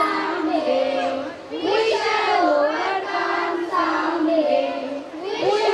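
A group of children singing together, a single melody line of held notes that slide smoothly from pitch to pitch.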